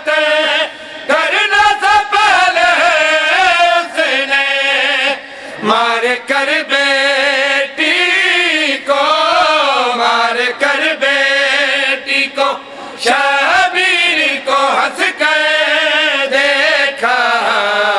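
A man chanting a Urdu noha, a Shia mourning lament, into a microphone, in long held lines with heavy vibrato and only brief breaks for breath.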